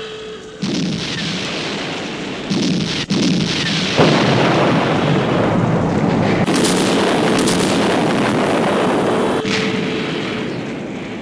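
Explosion sound effects: several blasts in quick succession, the biggest about four seconds in, then a long rumble that dies away near the end. A steady pitched tone carries on faintly underneath.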